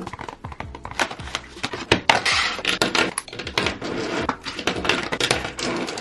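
Plastic-barrelled Pentel EnerGel gel pens and their clear plastic case handled on a tabletop: the case opened and a bunch of pens tipped out, clicking and clattering against each other and the table, then slid around by hand. It is a rapid run of small hard clicks, busiest about two to three seconds in.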